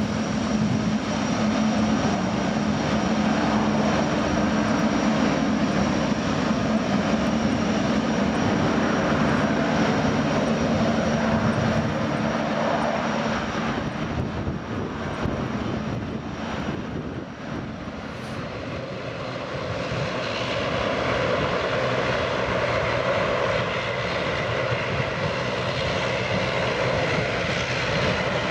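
Boeing 777-300ER's twin GE90 jet engines running at low taxi thrust, a steady rumble with a thin high whine. The sound dips a little past the middle and builds again from about two-thirds of the way in.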